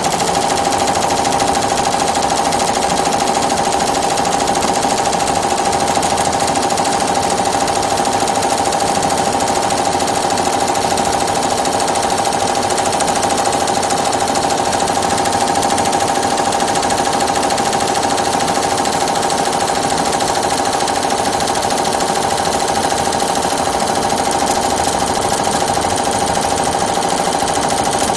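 Multi-needle computerised embroidery machine with a sequin device stitching sequins at speed: a fast, even run of needle strokes over a constant high hum.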